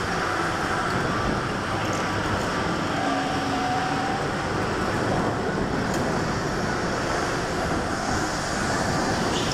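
Indoor go-kart driving at race pace, heard from a camera mounted on the kart: a steady running noise of motor and tyres on the track surface, with no break or sharp event.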